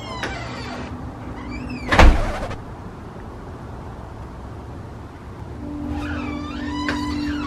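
Puppy whimpering inside a cardboard box: thin, high whines that rise and fall, in two spells, with a single sharp knock about two seconds in.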